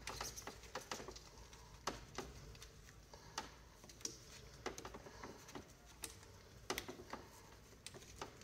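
Faint, irregular clicks and taps of gloved hands handling plastic parts and wiring inside a SNOO bassinet's plastic base.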